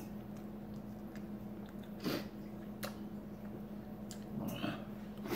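Quiet chewing and small mouth clicks from a man eating a mouthful of dry, drained canned tuna, with two short louder puffs of noise about two seconds in and again past four seconds, over a steady low hum.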